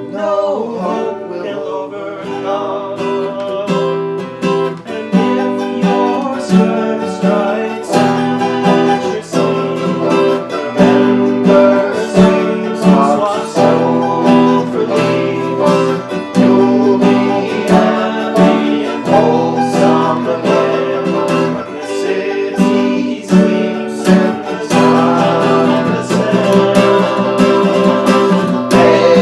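Acoustic guitar playing a strummed and plucked instrumental break in a folk song, a steady run of chords.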